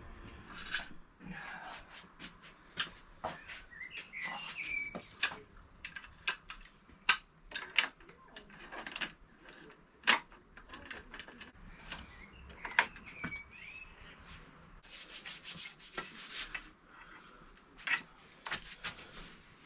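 Metal pannier-rack parts, spacers and bolts being handled and fitted by hand: scattered irregular clicks, knocks and rubbing.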